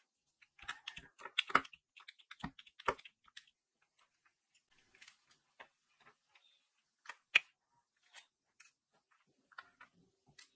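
Light clicks and taps of a diamond-painting drill pen picking up small round drills and pressing them onto the sticky canvas: a quick run of clicks in the first few seconds, then scattered single clicks, the loudest about seven seconds in.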